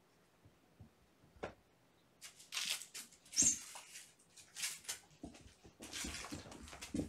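Kittens scampering and playing on carpet: irregular scuffling and rustling of paws, claws and toys, in short scratchy bursts that come thick and fast from about two seconds in.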